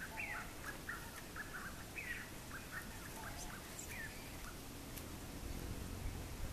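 A bird singing a repeated phrase: a falling whistle followed by a quick run of short notes, about every two seconds, three times, dying away after the third. A low rumble comes in near the end.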